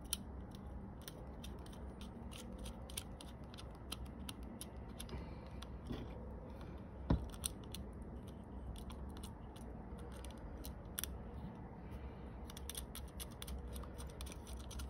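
Small metallic clicks and taps as nuts are put on the studs and parts are handled inside a Bosch distributor housing while a Pertronix Ignitor is fitted. There is one louder knock about seven seconds in.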